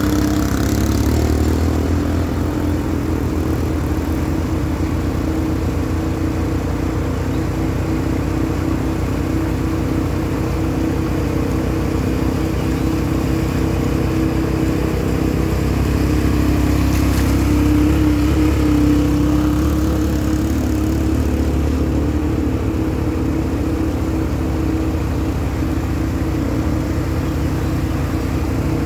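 Quad ATV engine running and revving as it drives through a shallow river, with splashing water; it gets louder near the middle as the quad passes close by.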